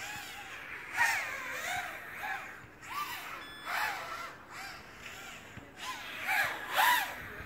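250-size FPV racing quadcopter's motors whining, the pitch rising and falling in short swells as the throttle is pushed and eased. The loudest swells come about a second in and near the end.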